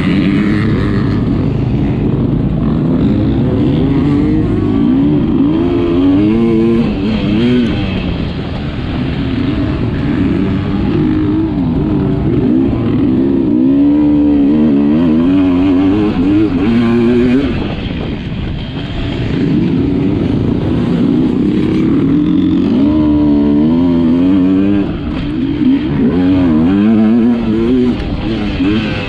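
Sherco 300 enduro motorcycle engine running hard, its pitch rising and falling every second or two as the throttle is opened and closed, with a short easing-off around the middle.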